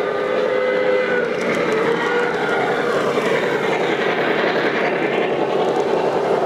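O gauge model freight train led by a Lionel Legacy New York Central 4-8-2 Mohawk steam locomotive passing close by. A steady whistle from the locomotive's sound system ends about a second in, then the wheels of the tender and freight cars make a steady rumbling rattle on the track.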